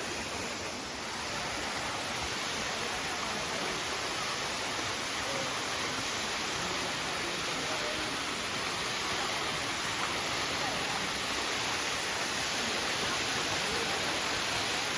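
Waterfall on a creek: a steady rush of falling water.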